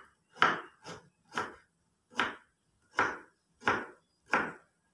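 Knife slicing fresh ginger root, about seven unhurried cuts at a steady pace.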